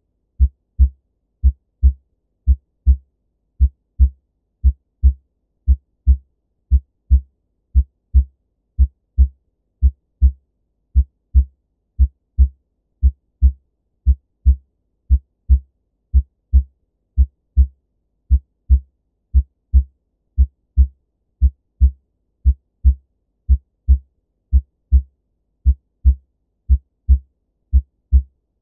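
Normal human heart sounds heard through a stethoscope over the chest: a steady lub-dub rhythm of S1 and S2, about one beat a second. No murmurs, rubs or gallops.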